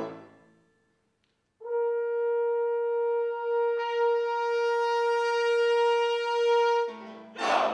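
Music: after a short fade and a second of silence, a wind instrument holds one long steady note for about five seconds. A brief lower note and a louder swell follow near the end.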